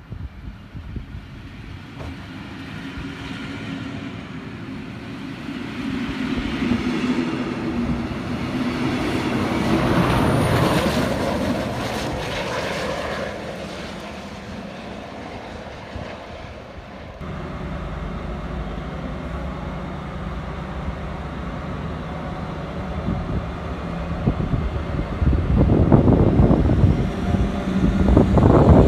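Regional train hauled by a class 246 diesel-electric locomotive: rail and running noise swells to a peak about ten seconds in and eases off. After a sudden change about seventeen seconds in, the locomotive's engine hums steadily, growing louder near the end.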